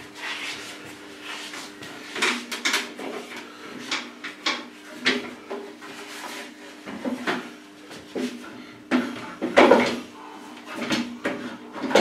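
Irregular wooden knocks and clatter as a small pine birdhouse is handled and set down on a wooden workbench top, with the loudest clatter near the end.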